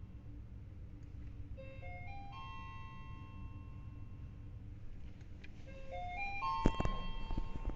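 Mitsubishi Electric elevator chime playing its four-note rising signal twice, a few seconds apart, the last note ringing on. A sharp knock comes just after the second chime, over a low steady rumble.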